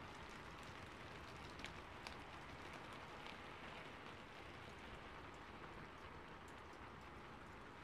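Faint rustling and crinkling of origami paper being folded and creased by hand, with a few light ticks in the first half, over a steady low hiss.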